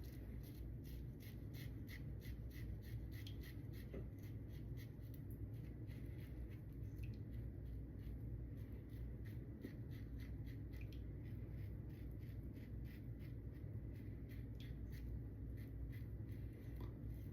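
Lambda Ares v2 safety razor with a Tatra blade scraping through lather and stubble in short, quick strokes: a faint, steady run of scratches, about two or three a second.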